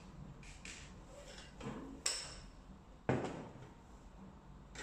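A screwdriver and screws clicking against the casing of a small IP PBX as its side screws are taken out: a series of light clicks, a sharp one about two seconds in, and a duller knock about three seconds in as the casing is handled.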